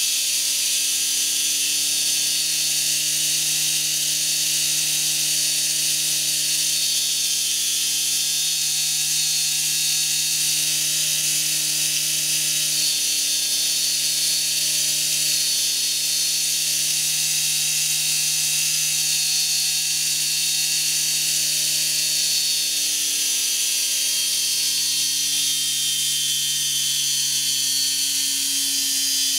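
Pancake electric motor running steadily, its spinning disc rotor giving a constant hum over a high hiss. The hum's pitch steps down slightly about halfway through and again near the end.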